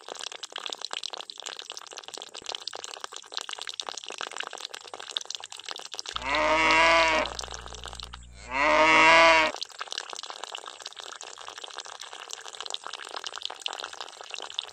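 A thin stream of water pouring and splashing into a small trough, with two cow moos near the middle, each about a second long and louder than the water.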